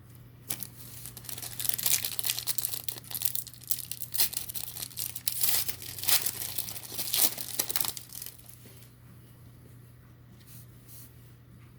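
Foil wrapper of a hockey card pack being torn open and crinkled by hand, a dense crackling rustle that runs for about eight seconds and then dies down.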